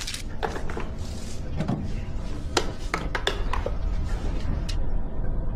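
Objects being picked up and handled: a scatter of light clicks, knocks and clinks, over a steady low rumble.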